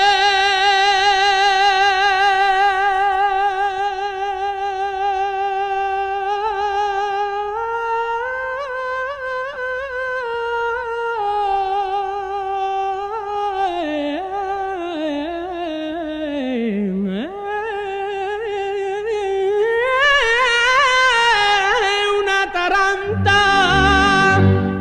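Song: a solo voice holds long sung notes with a wavering vibrato, sliding down and back up through a drawn-out melisma. Accompanying instruments come in with a rhythmic beat near the end.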